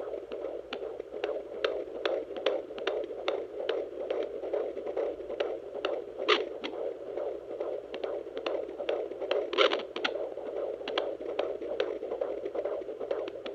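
Handheld fetal Doppler's speaker giving a steady whooshing hum with rapid pulses, about two to three a second, as the probe searches a 20-week pregnant belly. Two louder scratchy bursts come about halfway and three-quarters of the way through.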